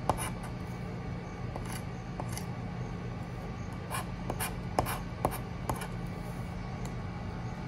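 Metal pointed tool scraping the latex coating off a paper scratch card in short, irregular strokes, over a steady low hum.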